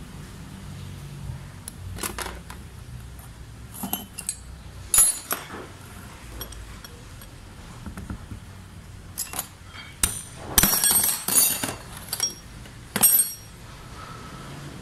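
Metal parts of a dismantled diesel injection pump and hand tools clinking and clattering on a steel workbench as they are handled, in scattered sharp clicks with a busier burst of clatter a little past the middle and one last loud clink near the end.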